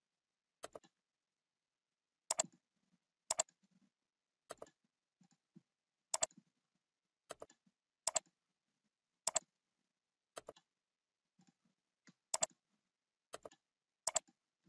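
Computer mouse buttons clicking: sharp clicks about once a second, many of them as quick double clicks, while right-clicking and picking items from a menu over and over.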